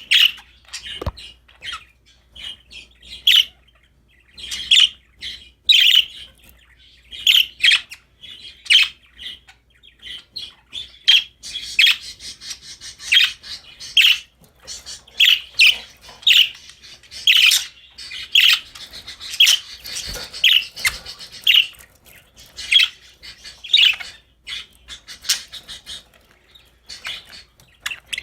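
Budgerigars chirping in short, repeated high calls about once a second, with a busier stretch of warbling chatter in the middle.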